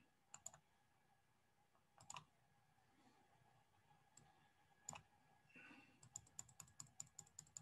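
Near silence broken by faint, scattered computer clicks, with a quick run of about four or five clicks a second near the end.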